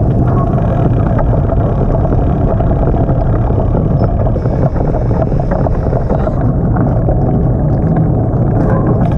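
Steady low rumble of wind buffeting the microphone while riding a bicycle along a road.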